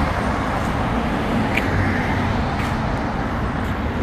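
Steady road traffic noise from cars passing on a wide multi-lane city road, an even wash of tyre and engine sound.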